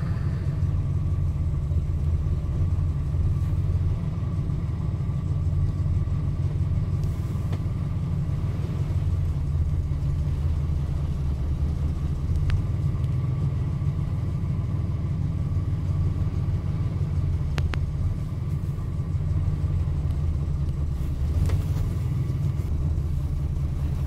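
A steady low rumble throughout, with a few faint clicks in the second half.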